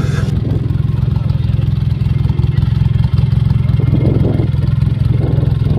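Polaris side-by-side buggy's engine idling steadily, a dense low pulsing from close by.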